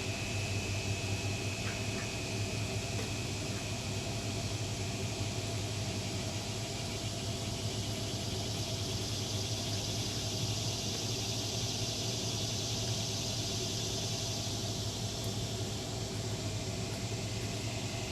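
Steady motor hum under a constant hiss, unchanging throughout.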